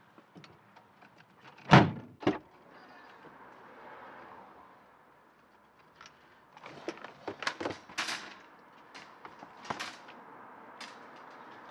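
A car tailgate being slammed shut: two heavy thuds about half a second apart. A few seconds later, a metal wire shopping trolley rattles and knocks against the car's boot as it is pulled out.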